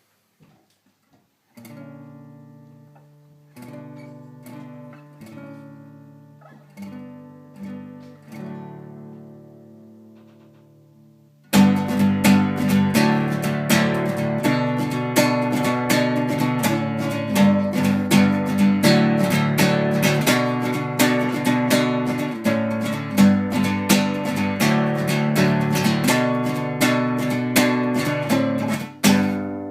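Acoustic guitar music: quiet picked notes at first, then about eleven and a half seconds in it turns suddenly loud with fast, dense strumming.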